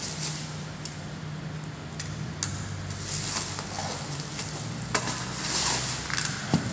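Clear plastic stretch wrap crinkling and crackling as it is pulled and peeled off a pallet of cardboard boxes by hand, with a few sharp clicks among the rustling.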